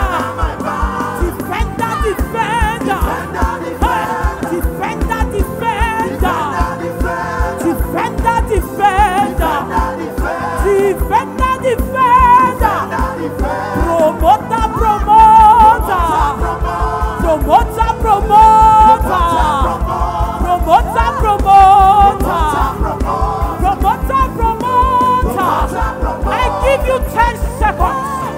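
Live gospel praise music: a singer leads over a band, with electric bass under a fast, even beat.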